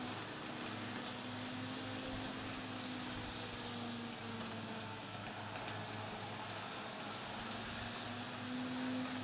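Small electric motor and drive of a Kato N-scale CSX GE AC4400CW model locomotive humming steadily as it pulls a short coal train around the track, louder as the train passes close by near the start and again near the end.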